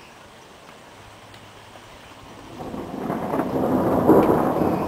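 Thunder rolls in about two and a half seconds in after a quiet start, building to its loudest near the end and still rumbling on.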